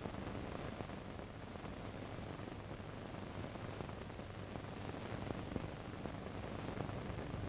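Steady hiss with a faint low crackle and a few tiny clicks: the background noise of an old film soundtrack, with no other sound.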